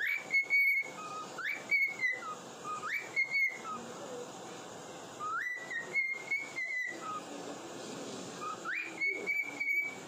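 An albino cockatiel whistling a tune in clear notes: each phrase swoops up into a held high note, with short lower notes between, about five phrases in all.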